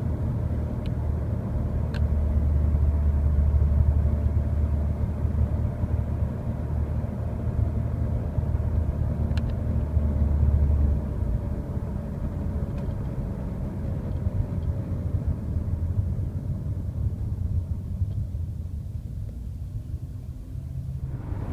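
Mercedes-Benz W202 C230 Kompressor running, with a steady low drone and rumble and a fainter tone that drifts slowly in pitch. The heavy low drone eases off about halfway through. A few faint clicks come near the start and again about nine seconds in.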